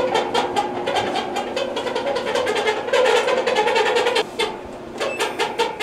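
Samsung clothes dryer running with a loud squeal and a rapid rattling, several clicks a second, as the drum turns: the noise of a worn idler pulley.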